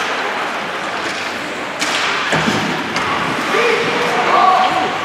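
A sharp smack of a ball being struck just under two seconds in, followed by a duller thud, over background chatter and voices calling out during a team game.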